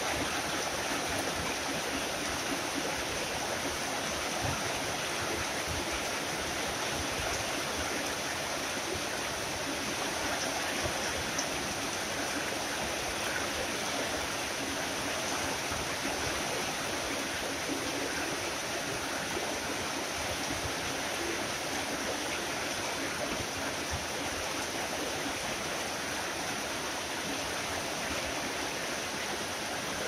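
Tropical rain falling steadily, an even, dense hiss of water.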